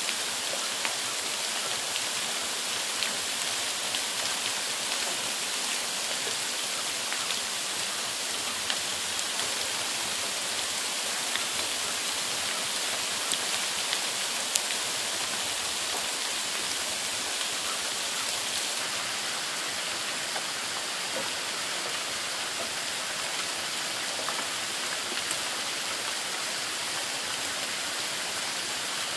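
Sleet and rain falling on the ground: a steady hiss with many scattered small ticks of ice pellets striking.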